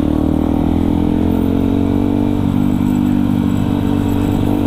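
Yamaha WR155R's single-cylinder engine running at a steady speed under way, with a low wind rumble on the microphone.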